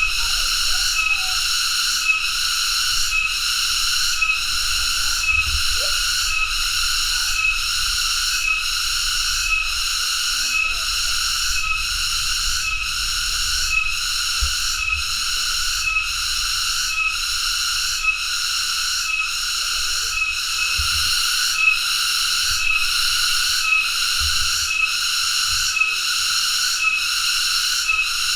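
Cicada calling: a loud, continuous high buzz that pulses regularly, a little faster than once a second.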